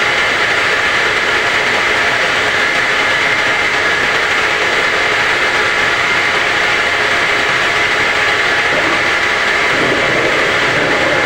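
Home-assembled semi-automatic round-gallon washing machine running steadily, a loud even mechanical noise; a rougher, lower sound joins about nine seconds in.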